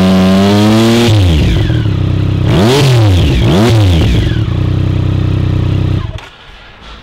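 2008 Triumph Speed Triple's 1050 cc inline-three engine being revved. It is held at high revs, drops back about a second in, gets two quick throttle blips, then idles until the sound cuts off near the end.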